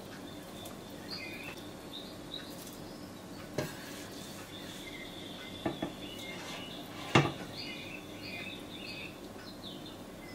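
A silicone spoon scooping fried herbs from a frying pan into an enamelled cast-iron stew pot and stirring, with soft scraping and three knocks of the spoon on the cookware, the loudest about seven seconds in. Small bird chirps repeat throughout.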